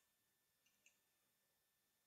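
Near silence, with two very faint clicks a little under a second in.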